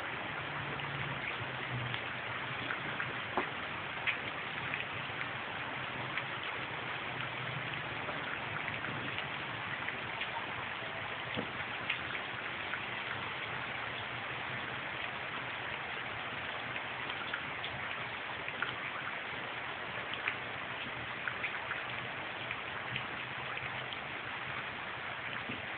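Heavy rain pouring down: a steady hiss with scattered sharp ticks of drops striking nearby surfaces.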